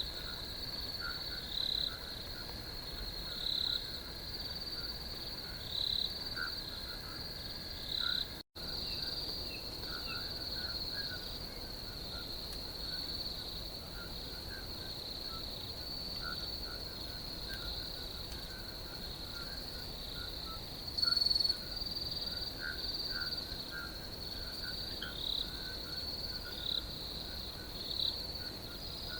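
Night chorus of crickets: a continuous high-pitched trill with louder chirps roughly every two seconds, and scattered lower chirps from other callers beneath it. The sound cuts out for an instant about eight seconds in.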